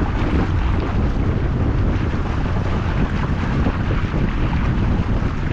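A small motor boat under way, with wind buffeting the microphone in a steady, even rush.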